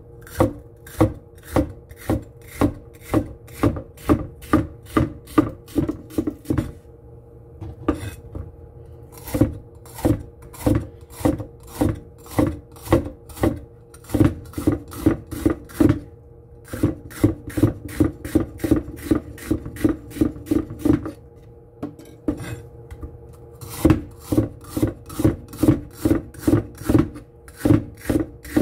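Kitchen knife slicing a bitter melon on a wooden cutting board: even strokes about two to three a second, in runs broken by short pauses.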